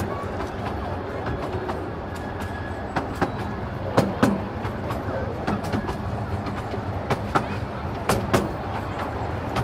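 Miniature railway coaches rolling along the track, heard from aboard: a steady rumble with irregular clicks and knocks of the wheels over the rail joints, the loudest about four and eight seconds in.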